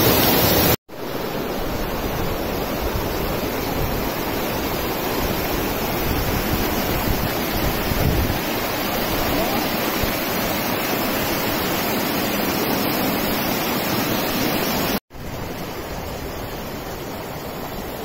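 Water rushing and splashing over rocks in a small waterfall and shallow rapids: a steady noise of white water. It drops out for an instant twice, about a second in and again near the end, where the recording is cut.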